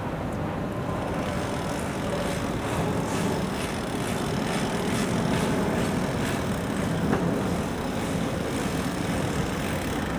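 Engines running steadily: a low rumble with hiss on top.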